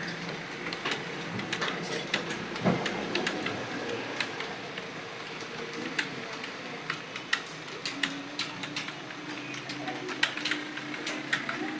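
Computer keyboard keys clicking in quick, irregular succession, several strokes a second, as someone touch-types at speed for a timed typing test. A low steady hum lies underneath.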